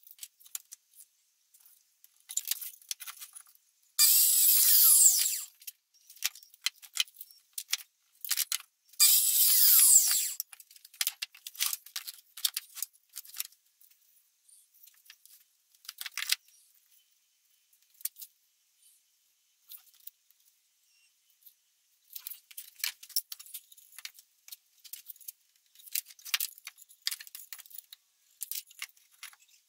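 Bosch mitre saw run twice in short bursts, each about a second and a half, its motor whine falling in pitch as the blade winds down. Between and after the runs come light clicks and clatter of wood and tools being handled.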